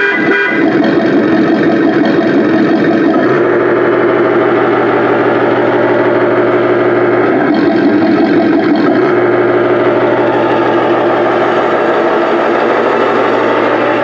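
Remote-control Ford F-350 pickup's electronic engine sound unit running: a loud, steady engine note that shifts in pitch a few times as the truck drives.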